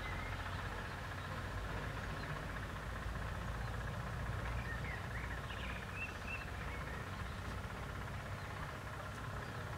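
Steady low outdoor rumble, with a few faint high chirps about halfway through.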